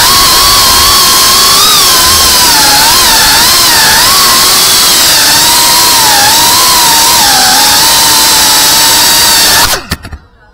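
GEPRC Cinelog 35 V2 cinewhoop drone's brushless motors and ducted propellers whining in flight, the pitch wavering up and down with the throttle. The whine cuts off suddenly near the end as the drone lands and the motors stop.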